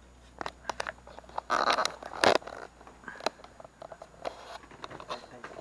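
Rustling and scraping with scattered sharp clicks, with two loud rustles about a second and a half and two and a quarter seconds in.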